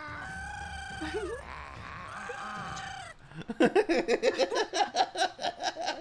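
Animated birds shrieking and screaming on a film soundtrack: two long held screeches, then from about three and a half seconds in a rapid pulsing shriek of about six pulses a second.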